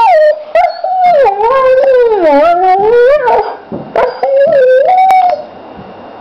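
Kelpie–German Shorthaired Pointer cross dog "talking": a loud, drawn-out howling whine that slides down in pitch and back up, breaks off briefly, then a second shorter whine that stops about five seconds in. The owner takes it as complaining that his walk is overdue.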